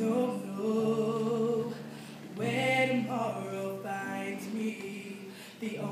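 A young woman sings a slow ballad over instrumental accompaniment, holding long notes with a wavering pitch.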